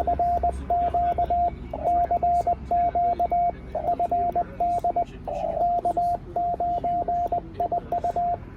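Morse code (CW) sent with a paddle key and heard as the radio's sidetone: one steady tone keyed rapidly on and off in dits and dahs, with short gaps between characters.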